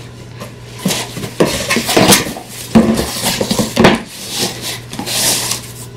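Cardboard shipping boxes being handled: flaps pulled open and a smaller box lifted out and opened. There are several sharp knocks and scrapes of cardboard, and a short rustle about five seconds in.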